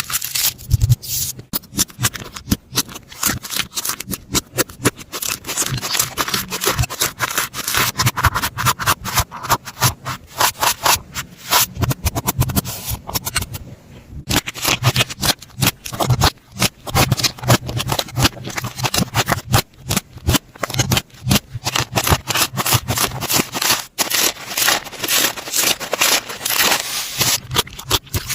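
Slime being squeezed and worked by hand: a dense, continuous stream of small crackling clicks and pops, with a brief lull about halfway through.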